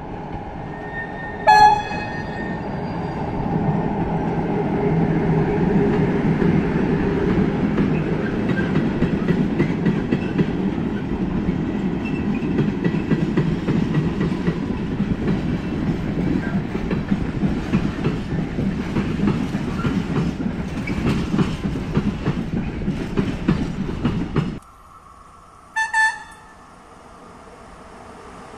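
An electric locomotive gives a brief horn blast, then its long freight train rolls past with a steady rumble and rattling wheel clatter of the wagons. The sound cuts off suddenly about 24 seconds in, and a second approaching electric locomotive sounds a short horn toot.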